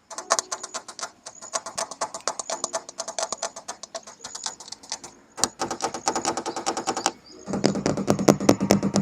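Fast tapping on the steel body of an excavator, about ten taps a second, with a faint ringing from the metal. There is a short pause about five seconds in, and from about seven and a half seconds the tapping turns louder and deeper.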